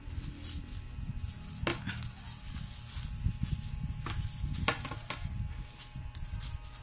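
Hands handling a plastic bag and wrapping electrical tape around a rod's handle: a crackly rustle with low handling rumble, and several short sharp rasps as tape is pulled off the roll.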